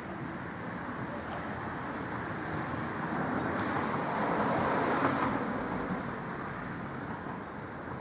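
A vehicle going past: steady road noise that swells to a peak about five seconds in, then fades.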